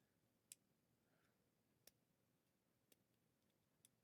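Faint, sparse clicks of a lock pick lifting the wafers of an old East German wafer padlock held under light tension, four clicks in all, each a second or so apart.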